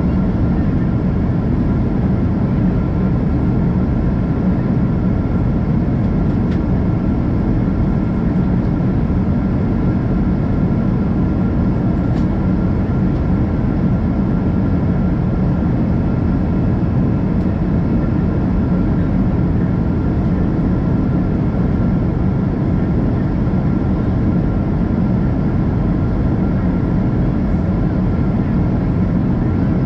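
Steady cabin roar of a Boeing 777-200ER in flight, heard from a window seat over the wing: airflow and Rolls-Royce Trent 892 engine noise, a deep rumble with faint steady whining tones above it.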